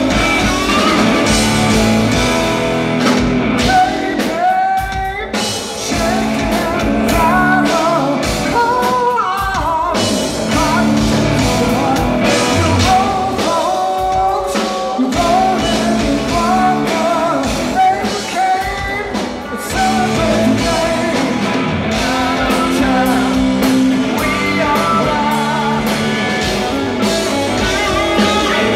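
Live rock trio playing: a male lead vocal sung over electric guitar, electric bass and drum kit.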